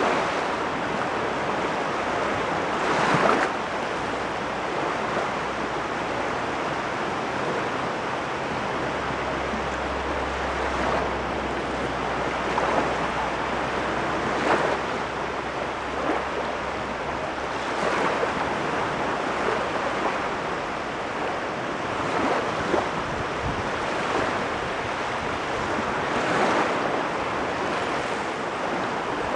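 Waves on the Caspian Sea shore: a steady wash of water, with a wave breaking more loudly every few seconds.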